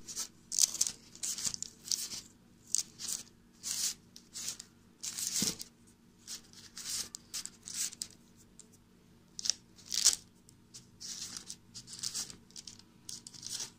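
Baking paper crinkling and rustling in short, irregular bursts as a hand moves and presses baked buns on a lined tray.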